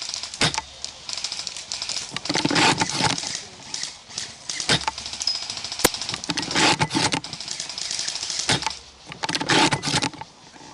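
Airsoft guns firing several short bursts of rapid clicking shots, each under a second long, with one single sharp crack about six seconds in.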